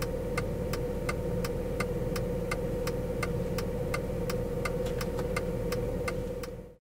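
Inside a moving car's cabin on a gravel road: the engine and road noise hum steadily, with an evenly spaced ticking at about three ticks a second. It all fades out near the end.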